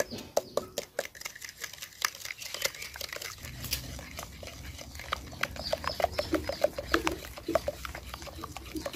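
A wooden spoon beating a runny egg, sugar and oil batter in a glass bowl: quick, uneven clicks and taps of the spoon against the glass.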